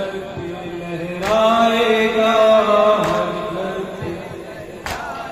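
Men's voices chanting a noha, a Shia lament, on a held, wavering melodic line that is loudest in the middle. Three sharp slaps, about two seconds apart, cut through it, the chest-beating (matam) that keeps time to the lament.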